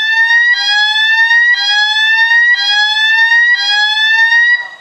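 Building fire alarm sounders set off in evacuate mode from the control panel: a loud repeating rising sweep tone, about one sweep a second. It stops shortly before the end.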